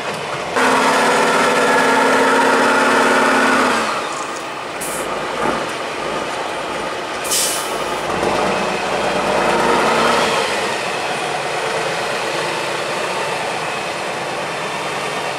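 Six-wheel trial truck's diesel engine working hard under load over steep rocky ground. It runs at high, steady revs for the first few seconds, then drops to a lower, rougher running. A short hiss comes about seven seconds in.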